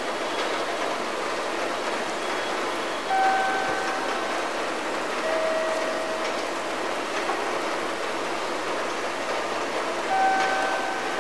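Busy railway station ambience: a steady wash of concourse noise. Over it a short electronic chime sounds, a higher note and then a lower note about two seconds later, with the higher note coming back near the end.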